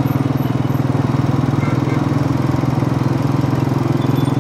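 Small vehicle engine running steadily up close at an even, low pace, with a fast regular pulsing beat.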